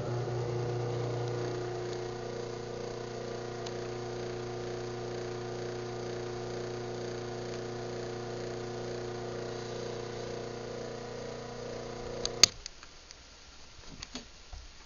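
Craftsman 1/2 hp chain-drive garage door opener (model 139.53930DM) running its close cycle: a steady motor hum for about twelve seconds that stops with a sharp click, followed by a few faint clicks.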